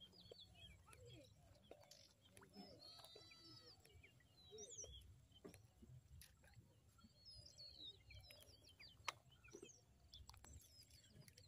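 Near silence: quiet outdoor ambience with faint, scattered bird chirps and a couple of soft clicks.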